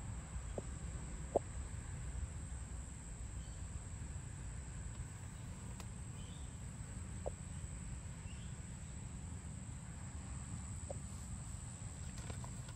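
Outdoor ambience: a steady high-pitched insect drone over a low rumble on the microphone, with a few short, single bird calls.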